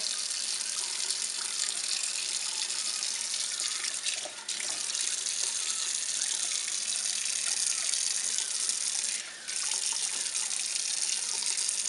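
Kitchen sink faucet running a steady stream of water that splashes onto a wet puppy and the hands rinsing her. The splashing dips briefly twice, about four and nine seconds in.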